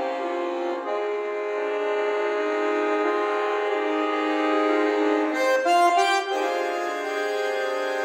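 Solo bayan (chromatic button accordion) playing sustained chords that change through the passage, with a brief flurry of fast, sharply accented notes about five and a half seconds in.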